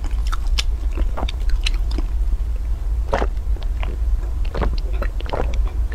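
Close-miked mouth sounds of chewing, then drinking from a plastic water bottle: a scatter of small clicks and pops over a steady low hum.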